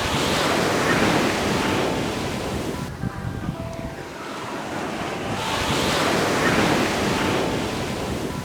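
Ocean waves breaking on a beach. Two waves crash and wash up the shore, one at the start and a second about five seconds in, each swelling and then fading as the water runs back.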